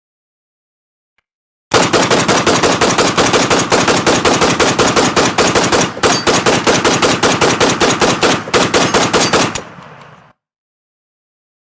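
Automatic gunfire: a long, rapid burst of evenly spaced shots lasting about eight seconds, with a couple of momentary breaks, then a short fading tail.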